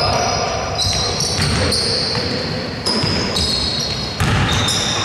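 Indoor basketball game on a hardwood court: the ball bouncing on the floor, with short high squeaks like sneakers on the court, over the hall's echoing background noise.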